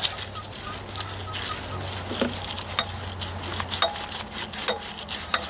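Irregular scratchy scraping with sharp little clicks as a corroded battery cable terminal is scrubbed clean by hand, over a faint low steady hum.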